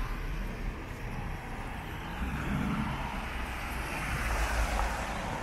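Road traffic noise from cars on a city street: a steady low rumble without letup.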